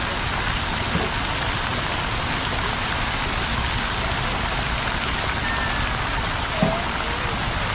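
Steady rush and splash of falling water from a plaza fountain. There is a short knock about two-thirds of the way through.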